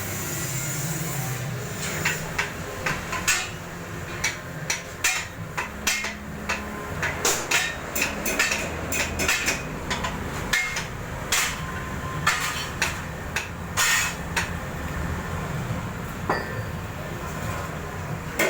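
Flour-dough pressing machine running under test: a steady motor hum with irregular sharp knocks, about one or two a second, starting about two seconds in.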